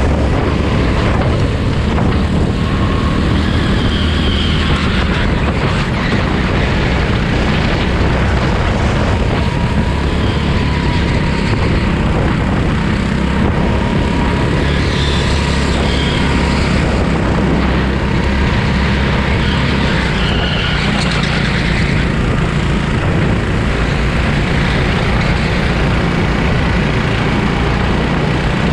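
Go-kart engine running steadily at racing speed through a practice session, with brief higher-pitched squeals a few times.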